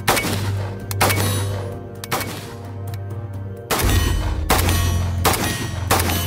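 Suppressed AK-pattern rifle firing single shots about a second apart: two shots, a pause of roughly two and a half seconds, then four more.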